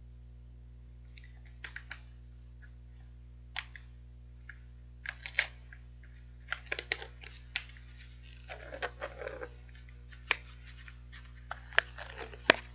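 Plastic wrapper of a strawberry mochi ice cream crinkling and tearing as it is opened by hand: scattered sharp crackles at first, coming thick and loud from about five seconds in.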